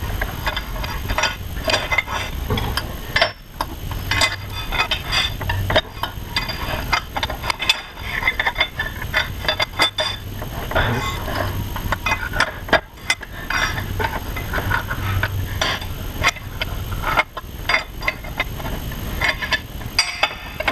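Hand tools on metal: a ratchet clicking in quick irregular runs and steel wrenches and sockets clinking as the bolts of a second-gen Dodge Cummins fan pulley mount are worked loose.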